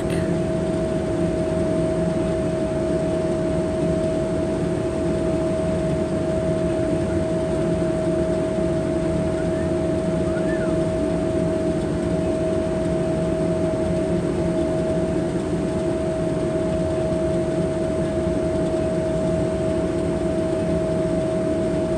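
Towboat's diesel engines running steadily: an even mechanical drone with a constant hum and a low rumble underneath. A faint short high chirp comes about halfway through.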